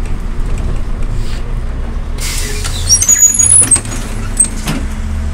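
MAZ-105 city bus standing with its diesel engine idling as a low steady hum. About two seconds in its compressed-air system lets out a short sharp hiss, followed by a second of high squeaks.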